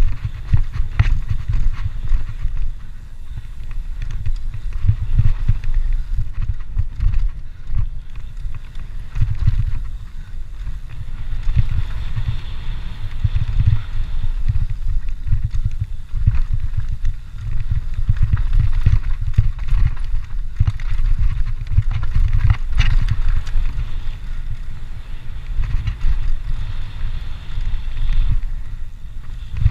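Cross-country mountain bike descending dirt singletrack, heard from a camera mounted on the bike or rider: a steady low rumble of wind and trail vibration with constant rattling and knocks as the tyres run over roots and rocks. There is one sharper knock about three-quarters of the way through.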